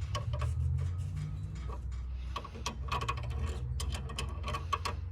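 Irregular metallic clicks and ticks of hand tools and hose-clamp parts being handled in a car's engine bay, over a steady low rumble. The clicks come thicker in the second half.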